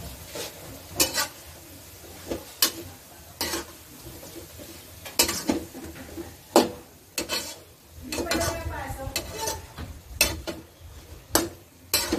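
A metal spatula scraping and clinking against an aluminium wok as pieces of pork are stirred and tossed, in irregular strokes. Faint sizzling of the frying pork runs underneath.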